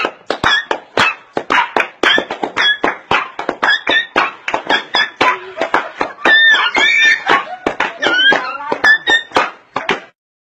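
Dance music with a quick, steady beat and a high melody, cutting off suddenly just before the end.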